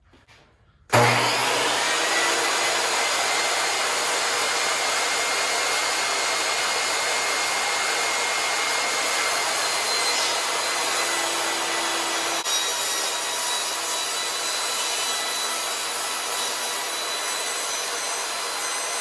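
Jobsite table saw switching on about a second in and ripping a long board lengthwise, with a steady blade whine over the noise of the cut.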